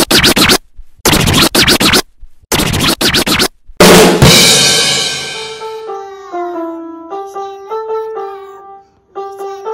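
A short intro jingle of loud scratch-like percussion hits, ending in a crash that rings away. Then a simple tune is picked out one note at a time on a small electronic keyboard.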